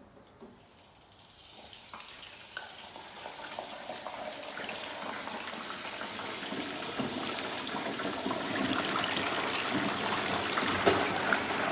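Water running or pouring, a steady hiss that grows louder over several seconds, with small clicks and splashes.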